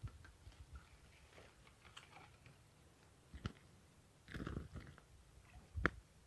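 Faint handling noises: scattered clicks and knocks, a short burst of rustling about four seconds in and a sharp click near the end, as a climbing perch just landed on the line is swung in and grabbed by hand.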